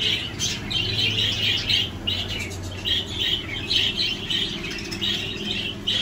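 Budgerigars chirping: a steady run of short, high, rapid chirps coming in clusters two or three times a second.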